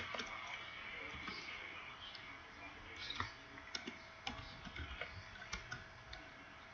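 Faint, irregular clicks of typing on a keyboard, spaced out in short runs.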